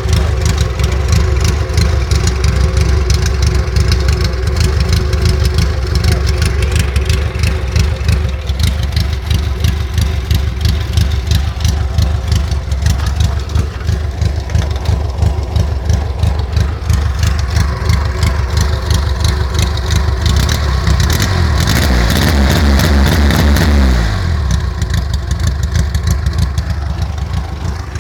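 Fiat 600's rear-mounted four-cylinder engine running with a fast, even pulse. About twenty seconds in it is held at higher revs for a few seconds, then the revs drop quickly back to idle.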